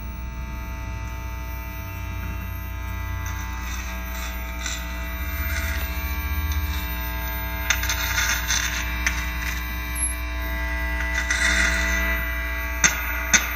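Homemade piezo contact microphone carrying a steady electrical hum and buzz, with scratchy noise bursts now and then and a couple of sharp taps near the end. The buzzing and interference are taken as a sign that something is wrong with the freshly soldered mic.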